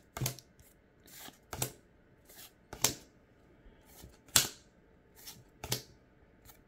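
Pokémon trading cards being flipped one by one from the front of a small stack to the back, each card giving a short, crisp swipe of card stock about every second and a half.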